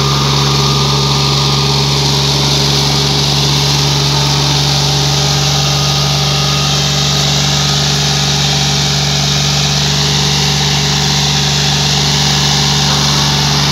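John Deere 5039D's three-cylinder diesel engine running steadily under load, pulling a disc harrow through dry soil.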